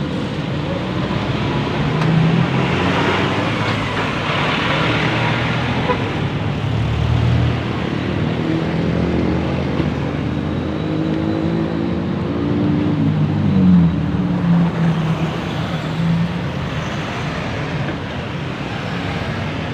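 Road traffic passing close by, with large vehicles such as buses going past. One heavy engine's note comes up strongly about halfway through and peaks about 14 seconds in.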